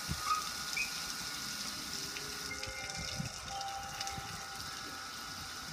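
Water showering onto a gas grill and streaming off its lid and front panel, splattering onto the paving below; a steady, even wash of water noise.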